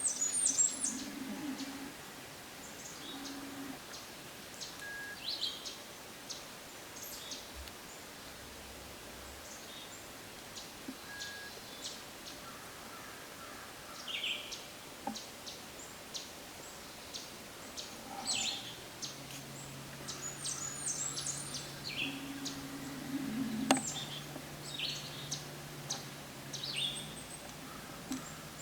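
Small songbirds chirping and singing: many short, high calls and trills, scattered and overlapping. A faint steady low hum joins about two-thirds of the way in.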